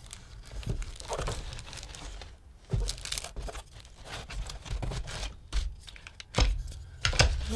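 Handling noise from unpacking a cardboard box: a cloth play mat rustling, tissue paper crinkling and flat wooden toy pieces being picked up, with a couple of soft knocks.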